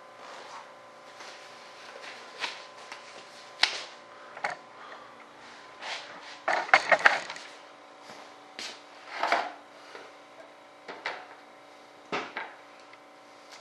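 Things being handled on a cluttered workbench: scattered knocks and clunks, with a brief rattling clatter about halfway through, over a faint steady hum.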